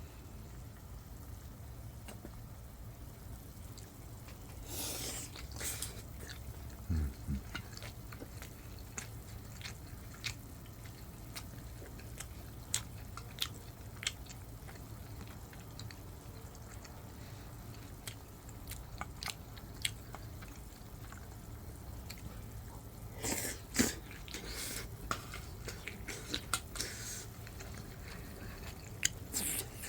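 A person eating at a table: small scattered clicks of chopsticks and tableware and quiet chewing, with a few brief louder rustling bursts, about five seconds in and again near the end, over a low steady hum.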